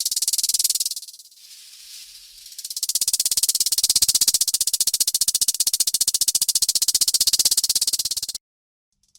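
Rattlesnake shaking its tail rattle in its warning buzz, a dry, very fast rattle. It fades about a second in and runs quieter for a moment, then swells again about three seconds in to a loud, sustained rattle that cuts off suddenly near the end.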